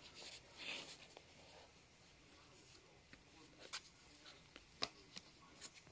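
Faint scratching and rustling of a small cardboard box as a cat shifts and paws inside it, with a few scattered light clicks.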